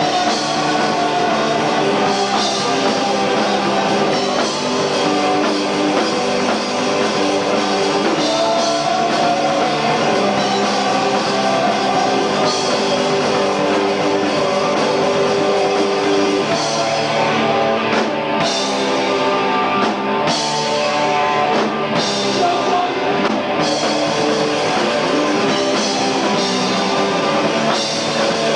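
Hardcore punk band playing live, with distorted electric guitar over a drum kit. The sound is loud and dense, captured on a low-grade camcorder recording.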